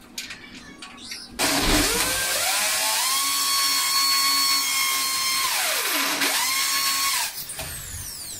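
Electric drill working on an aluminium sliding-door track: the motor spins up about a second and a half in to a steady high whine, slows almost to a stop around six seconds in, speeds up again briefly, then stops and winds down. Light clicks and taps come before it starts.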